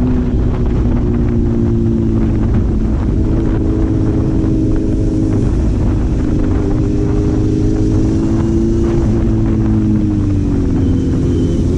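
Four-cylinder engine running at steady revs while on the move, its pitch drifting slowly down and up again near the end, with wind rumbling on the microphone.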